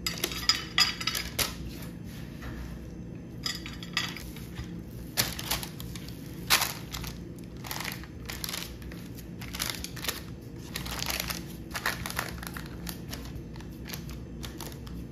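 A wooden spatula scraping and pressing thick halwa into a paper-lined glass baking dish: irregular scrapes and soft knocks, with the lining paper crinkling.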